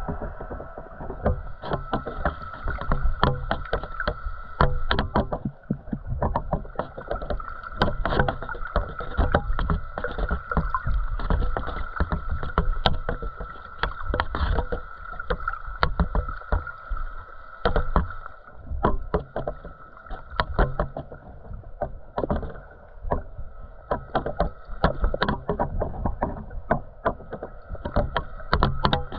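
Underwater sound picked up by a GoPro in its waterproof housing: a low rumble with many irregular clicks and knocks, and a steady high-pitched whine.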